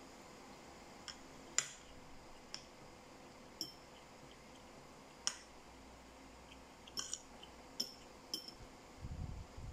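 Metal spoon and fork clinking and scraping against ceramic bowls while eating rice: about eight short, sharp clinks at irregular intervals, a couple of them louder. Near the end there is a low, dull rumble of handling noise.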